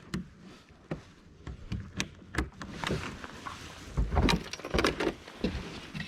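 Handling of a freshly caught fish and fishing gear: a series of sharp clicks and knocks with rustling, and two heavier thumps about four and five seconds in.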